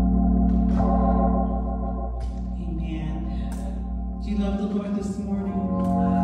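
Two-manual console organ playing slow, sustained chords over a held bass note. The chords change about two seconds in and again just past four seconds, when the bass note drops away.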